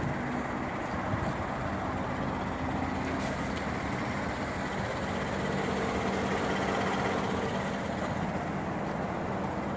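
A 2014 GMC Sierra's 5.3-litre V8 idling steadily, heard from beside the truck.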